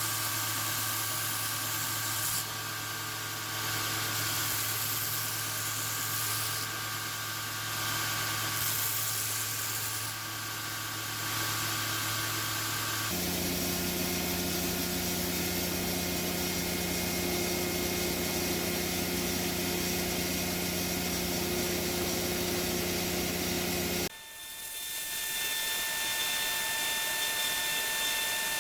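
Shop power tools running steadily with a constant hum. The tone changes abruptly about halfway through and again near the end, as one machine gives way to another.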